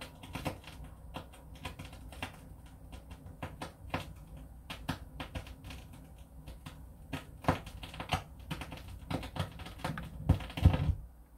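Vinyl LP on a turntable playing an unrecorded stretch of groove through the stereo: irregular clicks and pops of surface noise with no music. A few louder thumps come near the end, then the sound drops away.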